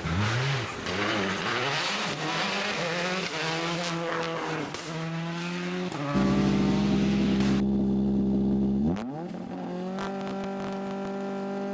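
Rally car engine revving up and down for the first six seconds. It then runs loud at steady revs with a deep rumble, rises sharply in pitch at about nine seconds, and holds a steady higher note.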